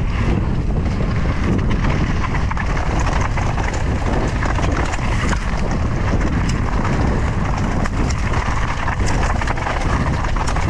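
Mountain bike riding fast down a dirt trail: wind buffets the microphone over a steady rumble of the tyres, with the bike rattling and clicking over bumps and loose ground throughout.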